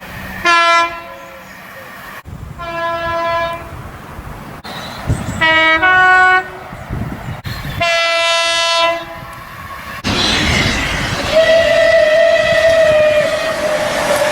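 Locomotive horns sounding in a string of separately edited clips: a short blast, then several longer blasts, one of them a multi-note chord that changes partway. Near the end a steadier horn tone rides over the rumble of a moving train.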